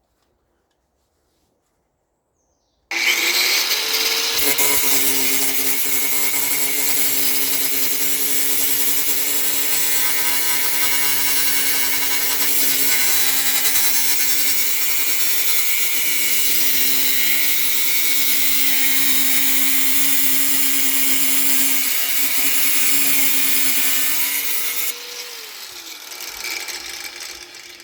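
Angle grinder cutting through sheet metal: it starts about three seconds in and runs steadily with a whine and a harsh hiss for about twenty seconds, then the cut ends and the motor winds down near the end.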